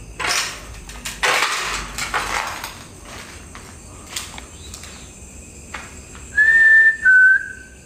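Two clear, whistle-like notes about six seconds in, each held about half a second, the second a little lower. Before them, a few short bursts of rustling noise.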